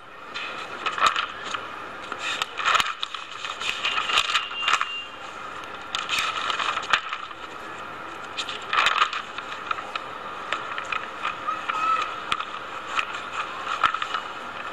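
Pages of a thick hardbound book being leafed through: irregular paper rustles and light clicks as the pages turn.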